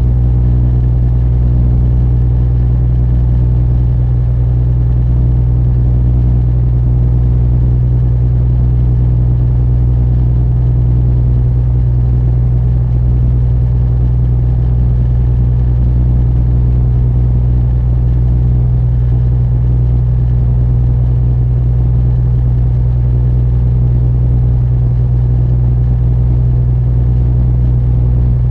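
Peniche barge's diesel engine running steadily while under way, an even low drone with no change in speed.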